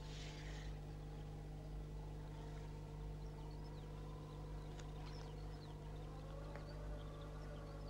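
Quiet outdoor ambience: a steady low hum under scattered faint, short, high bird chirps.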